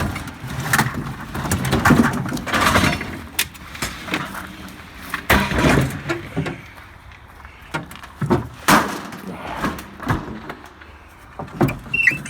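Irregular knocks, clunks and scraping of hard objects being handled and shifted, with no steady machine running.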